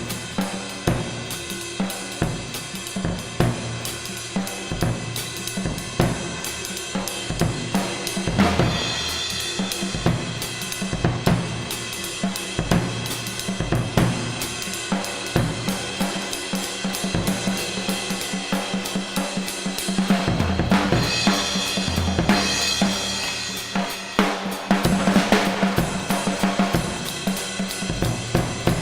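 Acoustic drum kit played as a fast, busy solo in a very large room: rapid strokes across snare, toms and bass drum with hi-hat, the drums ringing on. Cymbal crashes wash over the playing about a third of the way in and again twice in the second half.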